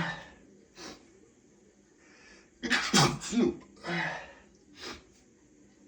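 A man's loud sneeze about three seconds in, his nose irritated by pepper, followed by two shorter breathy sounds.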